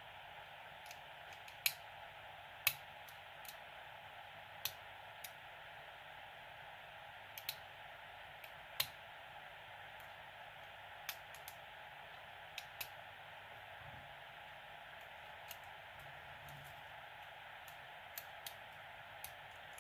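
Metal hook pick working the pins inside a lock cylinder during single-pin picking: small sharp metallic clicks at irregular intervals, sometimes a pair close together, over a steady hiss.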